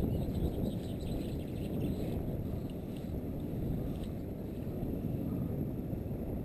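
Steady low rumble of wind buffeting the microphone, with faint high chirps or ticks in the first two seconds.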